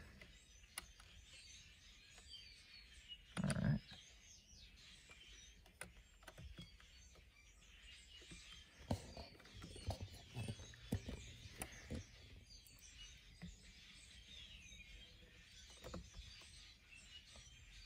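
Quiet background with faint high chirping throughout and scattered soft clicks, with one short louder sound about three and a half seconds in.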